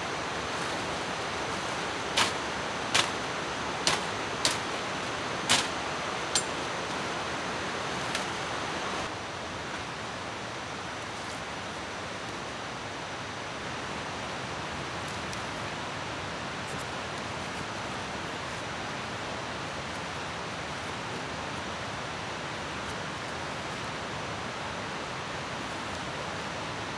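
Steady rushing of running water, like a jungle stream, with five sharp knocks spread over a few seconds, about two to six seconds in.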